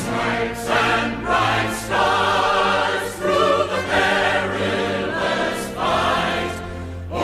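Choral music: a choir singing held notes with vibrato over a sustained low bass line.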